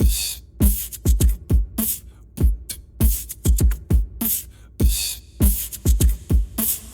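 Background music with a heavy drum beat: deep, booming kick drums alternating with sharp, hissy snare or cymbal hits.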